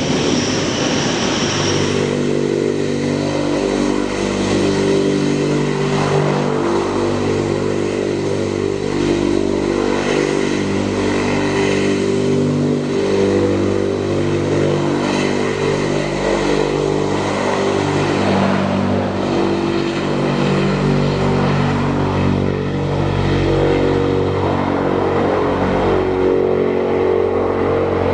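Loud, steady, low droning hum from the sky, several pitches at once that shift slightly every few seconds, which the uploader attributes to an Antonov aircraft flying low.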